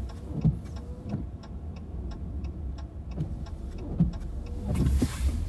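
Car cabin with a steady low engine and road rumble and a turn-signal indicator ticking about twice a second, as the car slows to turn in. Two sharp thumps, and a rise of hissy road noise near the end.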